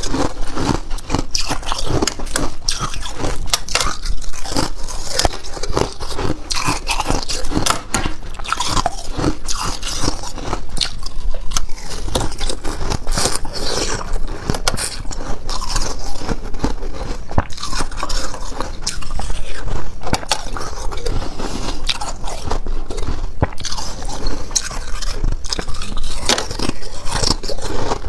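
Close-miked biting and chewing of thin crushed ice: dense, irregular crunching and cracking as the teeth break through the brittle shards, with some scraping of ice.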